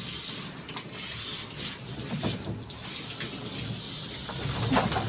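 Water running steadily from a tap and splashing in a bathtub as a dog is wetted down for a bath.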